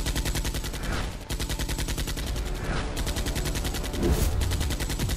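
Automatic rifle fire: a continuous rattle of rapid shots, many a second, with a short break about a second in and a louder stretch just after four seconds.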